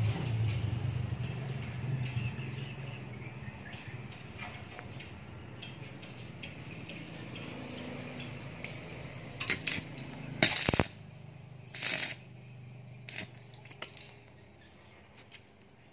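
Steel-rod shelf clinking against square steel-tube legs as it is shifted into place by hand, with a few sharp metal knocks in the last third, the loudest about two-thirds in. A low hum fades away over the first half.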